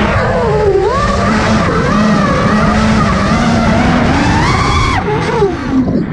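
FPV quadcopter's brushless motors and propellers whining, the pitch rising and falling with throttle, over a rush of wind. Near the end the whine drops sharply as the throttle is cut.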